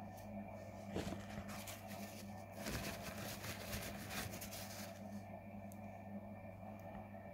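Paper towel crinkling and rustling as it is rubbed against a small metal vape atomizer, strongest for a couple of seconds around the middle, with a sharp knock of handling about a second in. A steady hum runs underneath.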